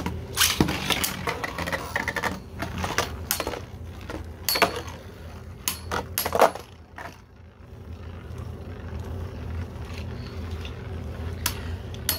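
Two 3D-printed Beyblade spinning tops battling in a stadium: a run of sharp clacks as they collide, frequent through the first seven seconds or so, then a quieter steady spinning hum with only an occasional click.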